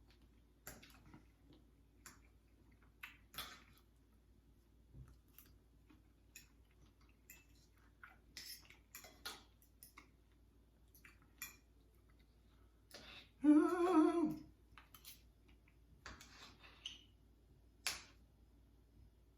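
Eating pancakes with cutlery: scattered light clicks and taps of a fork on a plate, with chewing and mouth sounds. About two-thirds of the way through, a short hummed "mmm" from the eater, falling in pitch at its end, is the loudest sound.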